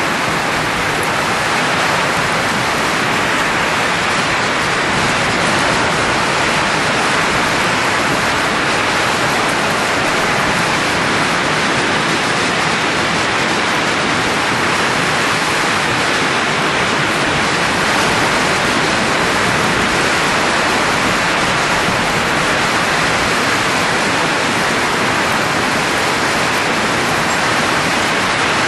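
Steady rushing hiss of blowing air that holds even without any rhythm or change in pitch.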